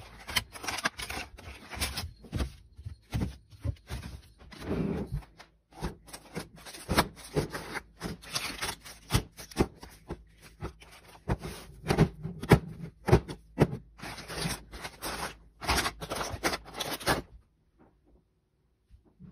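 Irregular taps, clicks, scrapes and rustles of items and packaging being handled and set down while a fridge is restocked. The sounds stop suddenly about seventeen seconds in.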